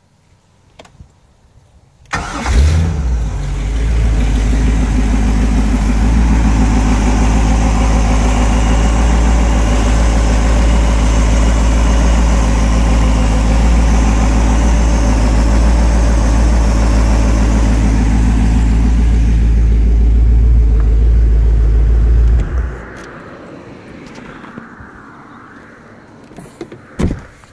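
A Carrera ski boat's inboard V8 engine starts about two seconds in and runs at a steady idle for about twenty seconds, then is shut off and dies quickly. A single sharp knock sounds near the end.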